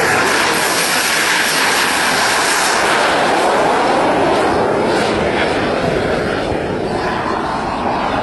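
KingTech K-170 model turbine engine of a Skymaster Hawk 100 RC jet running at high power through its takeoff run and climb-out: a loud, steady jet rush and whine whose pitch drops about halfway through as the model passes.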